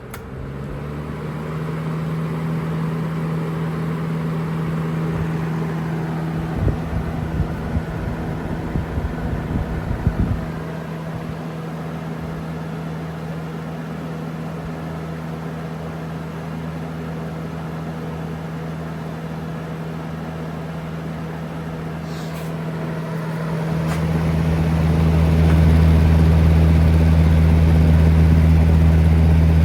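Uncleaned, unoiled 1996 Lasko 3733 20-inch box fan running on high: its motor hum rises in pitch as it speeds up at the start. For a few seconds in the middle come uneven low thumps from the fan shaking. Near the end a deep rumble builds and becomes the loudest sound.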